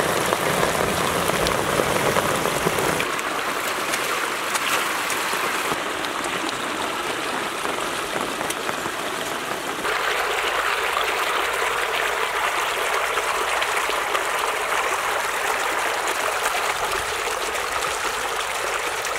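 Muddy rainwater runoff rushing and splashing as it pours over a small drop in a village stream channel: a steady rush of water whose tone shifts about 3 and 10 seconds in.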